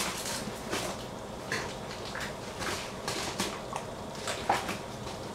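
Covered pot of couscous and water heating on a stove, giving off irregular small pops and clicks as it comes toward the boil.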